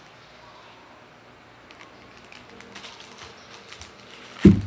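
Quiet, scattered small clicks of objects being handled, then one heavy thump near the end as something is put down on or knocks the table.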